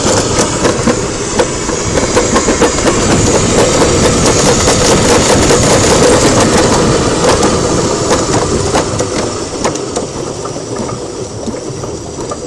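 Summer bobsled running down a stainless-steel trough track: a steady rattling ride noise with frequent sharp clicks and knocks, growing quieter over the last few seconds.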